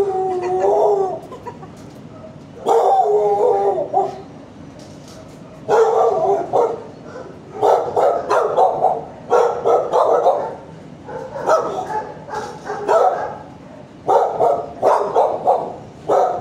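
Kennelled shelter dog barking in repeated bouts, each about a second long, about eight in all. The first two are drawn out and waver in pitch; the later ones are quicker runs of barks.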